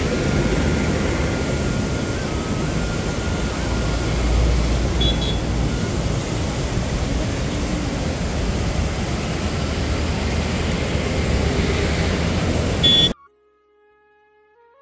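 Loud, steady rushing outdoor noise with an uneven low rumble, like wind and traffic on the microphone. It cuts off suddenly near the end, and soft flute music comes in.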